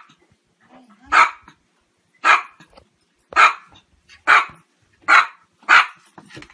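A dog barking repeatedly: six sharp single barks, about a second apart, coming a little faster near the end.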